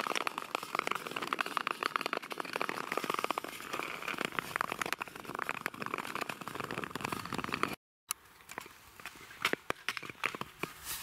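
Ice skate blades scraping and crackling over rough natural ice, a continuous dense rasp of tiny clicks. It cuts off about eight seconds in, and after that only a few scattered sharp crunches are heard.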